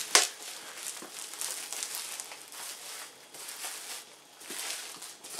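Bubble wrap crinkling and rustling as it is handled and pulled from a parcel, with one sharp knock just at the start.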